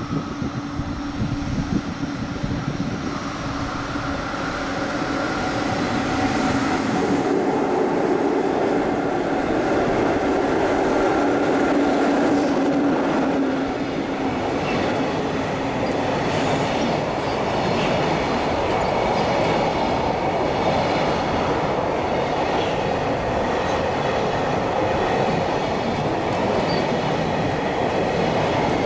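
JR Freight EF66 electric locomotive hauling a long container freight train through the station at speed. A steady hum grows louder over the first several seconds as the locomotive approaches and passes. Then the container wagons roll by with continuous rumbling wheel noise and clickety-clack over the rail joints.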